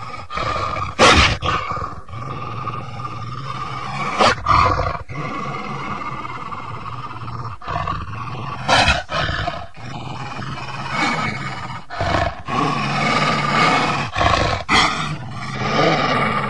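Wolves growling and snarling without a break, with several sudden louder snarls every few seconds.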